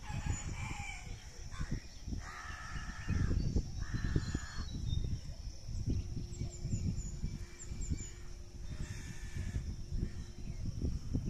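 Gusty pre-storm wind buffeting the microphone, with birds calling over it: two harsh, drawn-out calls a couple of seconds in and thin high chirps later on.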